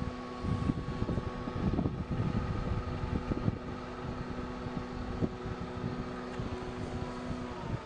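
Wind buffeting the microphone in gusts, over a steady mechanical hum that stops shortly before the end.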